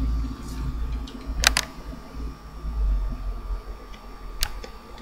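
Handling sounds of a paper-covered cardboard tube on a tabletop: a few sharp taps or clicks, one about a second and a half in and another near the end, over a low steady rumble.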